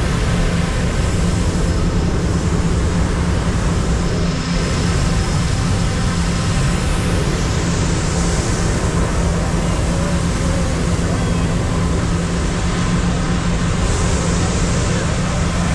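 Gas-engine inflator fan running steadily with a low hum, blowing air into a hot air balloon envelope. The propane burner fires in blasts of hiss about eight seconds in and again near the end, heating the envelope to stand it up.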